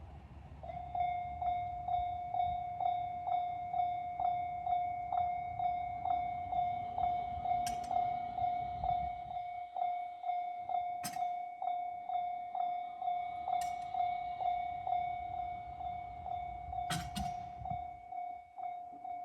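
Japanese level-crossing warning alarm of the JR standard electronic type, starting just under a second in and ringing a single pitched ding about twice a second. A low rumble fades out about halfway through, and a few sharp clicks sound over the ringing.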